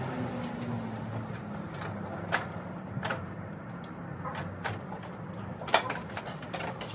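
Hand tools clinking and knocking against metal engine parts of a Mercedes M156 V8. There are a handful of sharp clicks, the loudest near the end, over a steady low hum.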